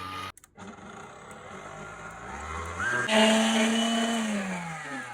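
Electric motor of a 1900-watt Royalty Line 3-in-1 kitchen machine running. After a short break about a third of a second in, it speeds up with a rising whine, runs loudest and steady from about three seconds in, then winds down with a falling pitch near the end.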